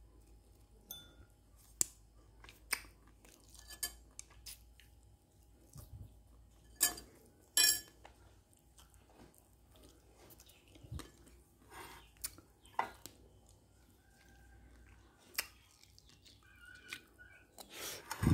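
Close-up eating sounds: chewing, with scattered short clicks of a metal spoon against a ceramic rice bowl. The loudest is a sharp clink right at the end.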